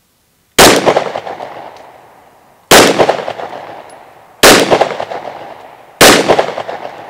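Four 9mm pistol shots from a Glock 17, fired a second and a half to two seconds apart, each followed by a long echo that dies away.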